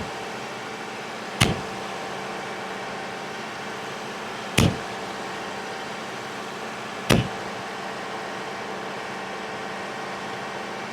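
John Deere 4052R cab door latch snapping shut three times, a few seconds apart, as the door is closed and reopened in testing. The latch is freshly lubricated and now catching properly. A steady mechanical hum runs underneath.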